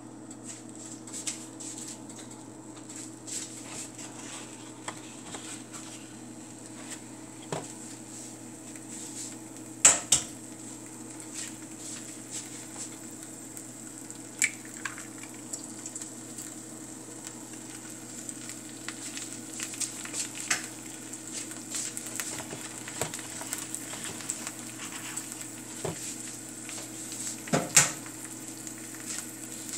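Eggs frying in hot leftover sausage grease in a nonstick pan, with a steady sizzle and small pops of spattering fat. Two louder sharp knocks come about ten seconds in and near the end.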